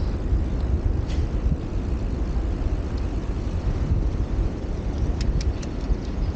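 Steady low rumble of outdoor street noise, with a few short high ticks about five seconds in.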